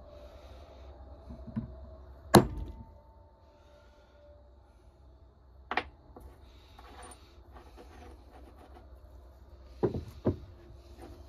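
A few sharp knocks on a hard surface: one loud knock, a lighter one a few seconds later, and two in quick succession near the end, over a faint steady low hum.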